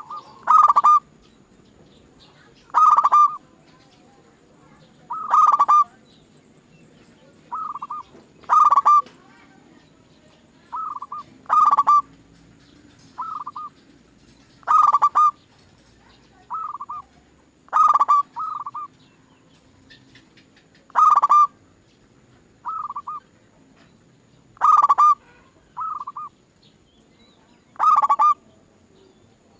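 Zebra dove (perkutut) cooing in short rolling phrases, repeated about every three seconds. Louder phrases alternate with softer ones in between.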